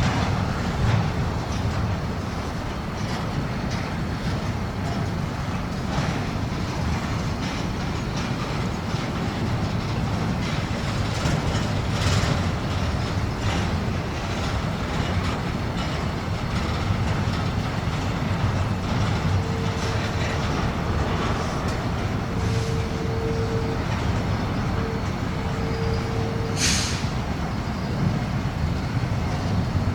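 Freight train rolling past: a steady low rumble of wheels on rail, with scattered clanks. From about two-thirds of the way through, a thin steady whine comes and goes, and near the end there is a short hiss.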